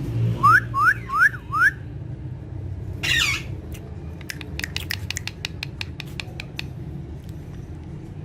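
Pet parrots calling: four quick rising whistles, then a short harsh squawk about three seconds in, followed by a rapid run of sharp clicks, over a steady low hum.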